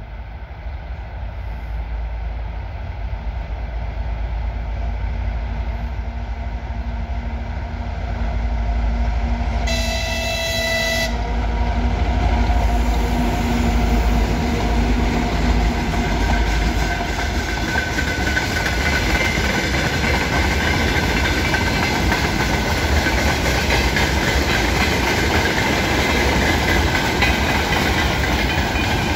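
2TE10MK twin-section diesel locomotive approaching with a freight train, its low engine rumble growing louder. About ten seconds in it sounds its horn once for about a second and a half. The locomotive passes and the freight wagons follow with steady rolling wheel noise.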